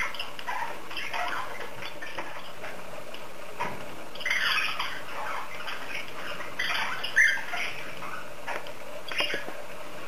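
Cockatiel cracking and husking millet seeds off a millet spray with its beak, a quick irregular crackle of small clicks, with a few short squawks or chirps, the loudest about seven seconds in.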